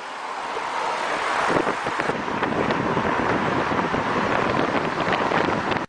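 Rushing wind noise buffeting the microphone. It builds over the first second and a half, holds steady, then cuts off abruptly at the end.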